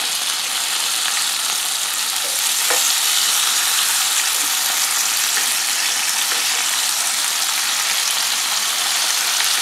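Beef burger patties sizzling steadily on the hot grill grate of a Ninja Foodi Smart XL Pro indoor grill as they are turned, with one faint tap a little under three seconds in.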